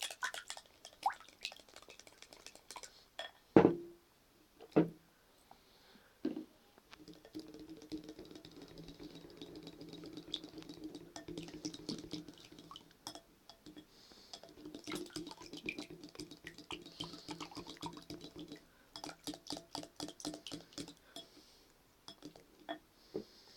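Spoon stirring a thick, wet guar-gum and borax slime in a bowl: sticky squelching with clicks and knocks of the spoon against the bowl, a few louder knocks a few seconds in, and a quick run of ticks near the end.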